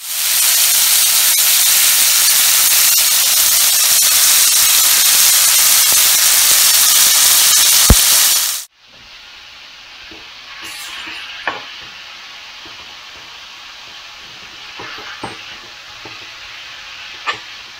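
Thin slices of pork belly frying in their own rendering fat in a wok. For about eight and a half seconds there is a loud, close sizzle. It then cuts to a quieter steady sizzle with a few sharp scrapes of a spatula stirring the meat.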